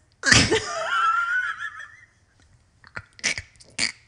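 A woman's high-pitched delighted squeal, held for about a second and a half, followed near the end by a few short, sharp laughing breaths.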